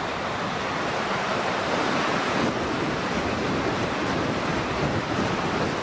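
Strong coastal wind blowing, with surf, making a steady rushing noise that is "fairly howling".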